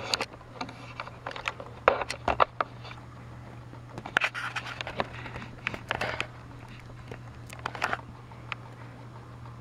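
Handling noise: irregular clicks, knocks and scrapes, with clusters about two seconds in and between four and six seconds, over a steady low hum.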